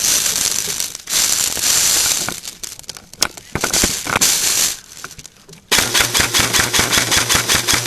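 Airsoft electric rifle firing on full auto near the end: a rapid, even rattle of shots over the whir of its motor and gearbox, laying down suppressing fire. Before that, a stretch of loud rushing noise with scattered clicks.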